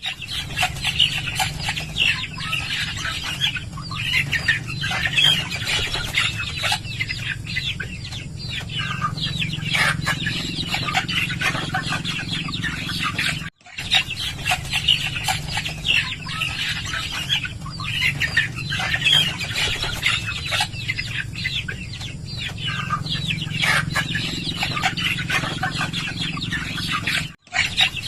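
A flock of chickens clucking over a steady low hum. The sound cuts out briefly twice, about halfway through and near the end.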